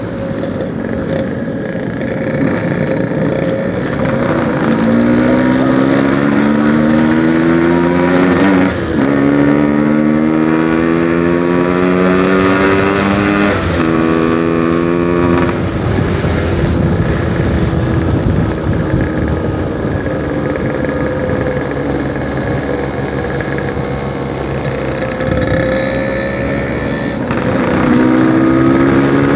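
Yamaha RX-King 135cc single-cylinder two-stroke motorcycle running through a Packing Power aftermarket exhaust while being ridden. Its pitch rises in three pulls through the gears, each cut off by a shift, in the first half. It then runs more steadily and picks up again near the end.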